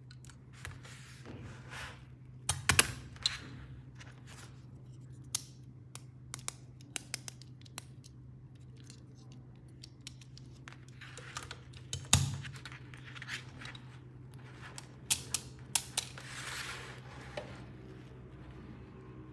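Plastic toys and packaging being handled while unboxing: scattered sharp clicks and taps with short rustles, the loudest clicks just before 3 s and about 12 s in, over a steady low hum.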